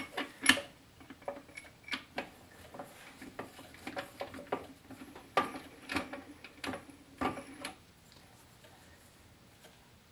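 Metal parts of an old Hjorth lathe clinking and knocking as a part is fitted on and its nut threaded down by hand. There are irregular sharp clicks and taps, and they stop about eight seconds in.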